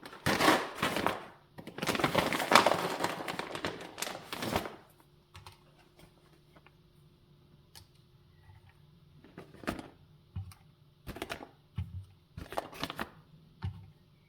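Hard, woody pieces of dried sanghuang (Phellinus igniarius) mushroom rattling and clattering as they are handled and weighed out. A dense clatter fills the first few seconds, then a few separate clicks follow as single pieces are added.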